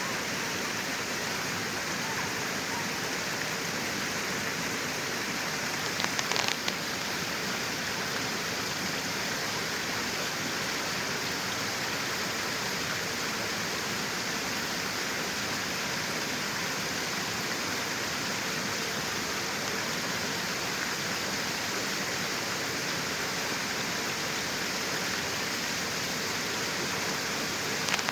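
Flowing water rushing steadily, an even, unbroken wash of noise, with a short cluster of sharp clicks about six seconds in.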